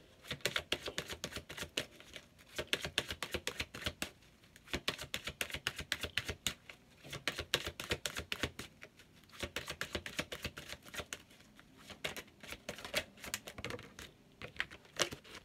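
A deck of oracle cards being shuffled by hand: bursts of rapid clicking and flicking of card edges, each a second or two long, with short pauses between them.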